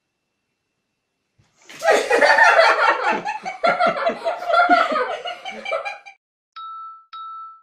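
A person laughing hard in repeated bursts for about four seconds, followed by two short identical electronic chime tones.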